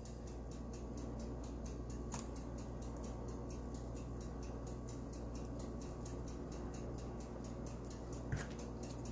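Steady low background hum with a faint, even ticking, and two soft clicks, about two seconds in and near the end; the thick batter pours without an audible sound of its own.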